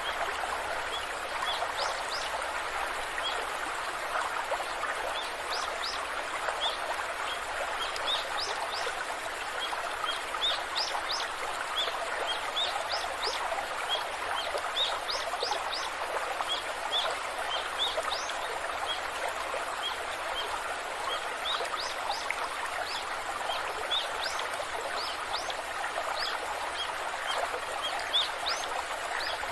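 Steady rush of a waterfall, with small birds chirping over it: frequent short, high chirps throughout.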